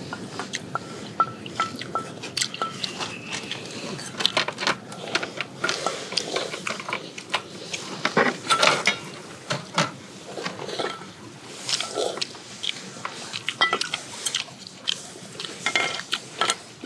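Metal chopsticks clinking against stainless-steel bowls, with slurping of broth and chewing: a string of irregular sharp clinks.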